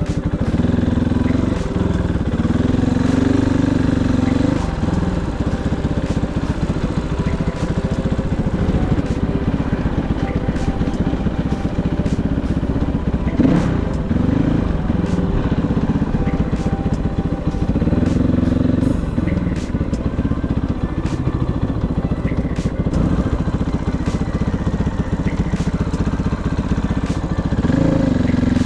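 Kovi 450i Pro enduro motorcycle engine running under way, its revs rising and falling every few seconds, with scattered sharp ticks and knocks.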